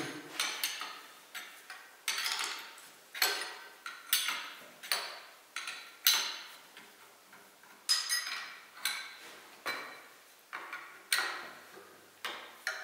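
Hand tools clinking and knocking on a tractor's cast-iron engine block and the cylinder-press hardware: irregular sharp metallic clinks with short ringing, about two a second.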